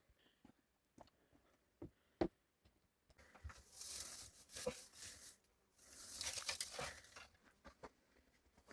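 A few light knocks, then two spells of rustling, scraping noise, each a second or two long.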